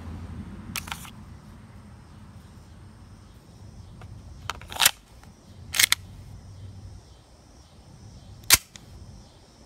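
Sharp plastic-and-metal clicks and clacks from handling an H&K USP airsoft pistol, with its magazine being pulled out and worked. There are about five clicks, some in quick pairs, and the sharpest comes near the end.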